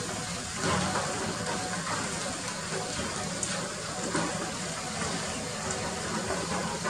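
Hydraulic excavator's diesel engine running as a low, steady drone under a constant rushing noise, with a few brief louder scrapes.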